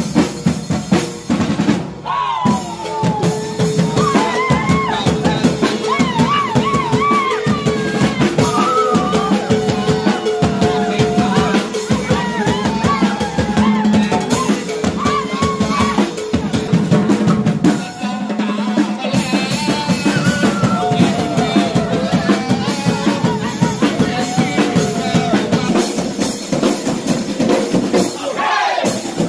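Thai Ta-Tueng-Mong marching percussion band, with snare and bass drums, playing a steady driving beat, and a wavering lead melody line over the drums.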